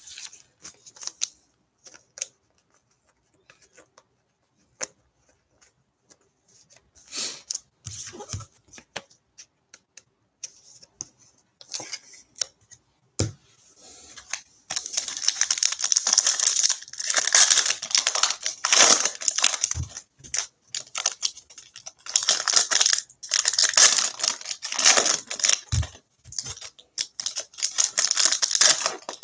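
A few light clicks and taps of cards being handled, then from about halfway a foil basketball-card pack wrapper being torn open and crinkled, in loud repeated bouts of crackling.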